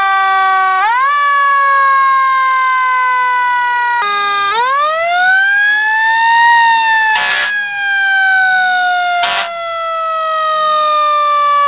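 Fire engine siren sounding, its pitch rising quickly about a second in and again in a longer sweep about four and a half seconds in, then slowly falling. Two short bursts of noise cut across it about two seconds apart near the middle.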